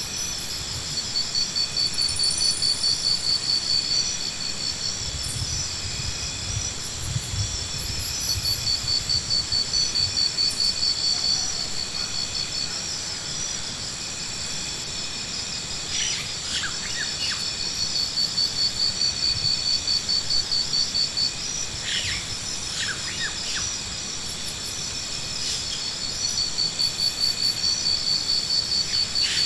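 Insects calling in a steady high chorus. Over it comes a louder pulsing trill of about four to five pulses a second, in bouts of about three seconds, and a few short falling bird calls sound about halfway through.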